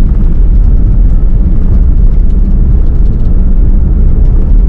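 Loud, steady low rumble of a car in motion, heard from inside the cabin.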